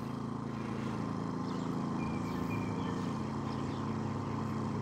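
Two inverter generators, a Dinking DK2300i-M and a Harbor Freight Predator 1600/2000, running together on low idle with a steady engine hum, heard from about 22 feet. A sound meter reads about 60 decibels.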